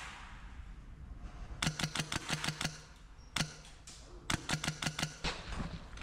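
Airsoft rifle firing quick bursts of rapid shots, about seven a second: one burst a little under two seconds in, a single shot in the middle, and a second burst past the four-second mark.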